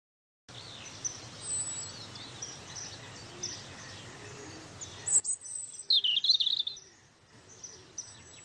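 Small birds chirping over a faint outdoor background hiss, with a louder warbling call about six seconds in.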